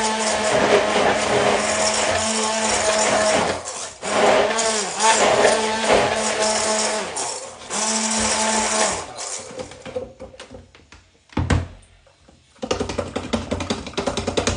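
Hand-held immersion blender running in a plastic jug, blending soaked kibble into a thick puppy mash: a steady motor hum that drops out briefly twice and stops about nine seconds in. A single knock follows, then a quick run of tapping and scraping as the mash is stirred by hand.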